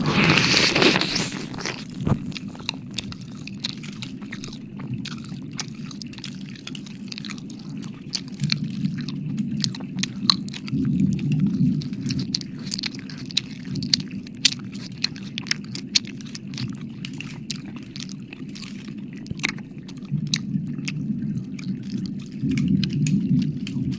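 Close-up wet mouth sounds right on a microphone: many quick, irregular clicks and smacks of lips and tongue, as in licking. A loud breathy rush at the start fades within about two seconds.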